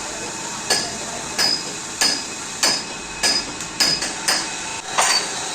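A hammer striking metal about eight times at a steady pace, roughly one blow every half-second or so, each blow with a short metallic ring.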